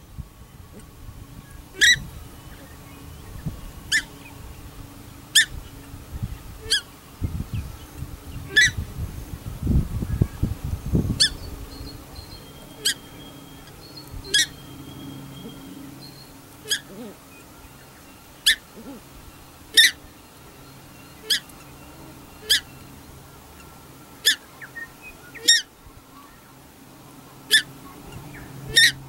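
Paradise shelducks calling: a long series of short, shrill honks, roughly one every second and a half. A low rumble runs for a few seconds near the middle.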